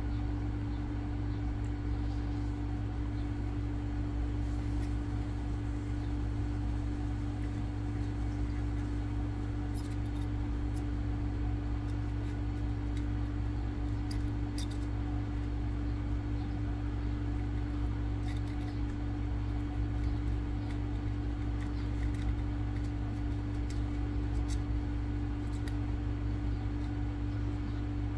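A steady low electrical hum, with occasional faint light ticks as a soldering iron and copper desoldering wick work solder out of a circuit board's through-holes.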